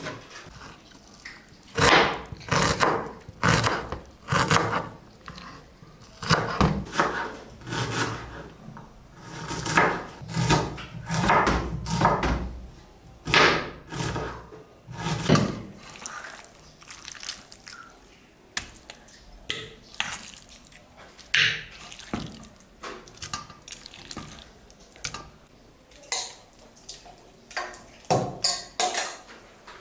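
Kitchen knife chopping onions on a plastic cutting board, irregular knocks of the blade against the board. Near the end a spoon scrapes and clinks against a steel bowl as meat is scooped into a pot.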